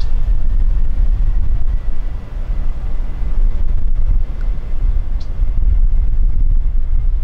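Loud, uneven low rumble of jet airliner engines, with a faint steady whine higher up.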